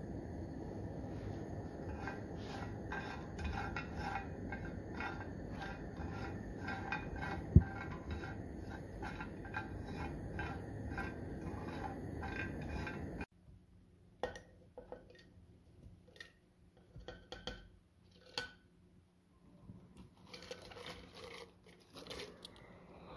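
Pecans and walnuts sizzling in olive oil in a nonstick frying pan: a steady hiss with crackling pops about three a second, and a single loud thump midway. About two-thirds of the way through this cuts to quiet rustling and light taps as fresh basil leaves drop into a plastic blender cup.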